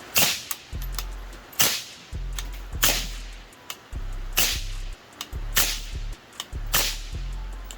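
Six shots from a semi-automatic .17 HMR rifle, sharp cracks about 1.2 to 1.5 seconds apart, one round each of different ammunition loads cycling through the action.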